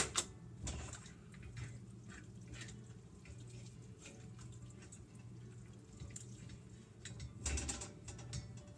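Faint drips and splashes of water around a noodle strainer dipped in a pot of boiling water, over a low steady hum, with a louder splash about seven and a half seconds in.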